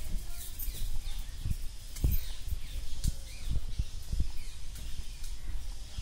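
Small birds chirping faintly in an aviary, over irregular low thumps of footsteps on wooden boards.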